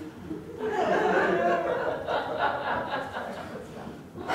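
Audience laughing, starting about half a second in and tailing off near the end.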